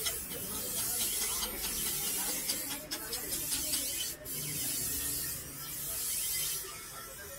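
Bench grinder's abrasive wheel grinding a steel knife blade: a steady, high hissing rasp, broken briefly twice about three and four seconds in.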